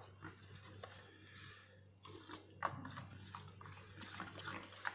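A spoon stirring and beating thick semolina and yogurt batter in a steel bowl: faint wet stirring sounds with irregular light clicks of the spoon against the steel.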